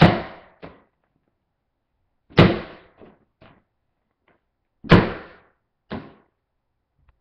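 Partly inflated beach ball slammed onto a tile floor three times, each a loud slap about two and a half seconds apart, with a softer knock following each one.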